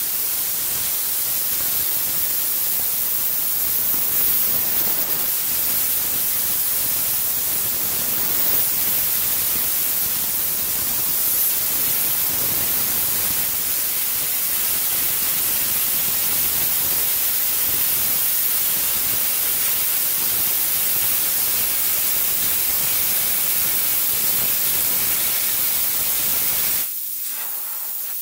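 Plasma cutter at full 50-amp power cutting through 10 mm steel flat bar: a loud, steady hiss of the arc and compressed air. About 27 seconds in, the arc cuts out and only a quieter hiss remains; the cutter has overheated at 50 amps.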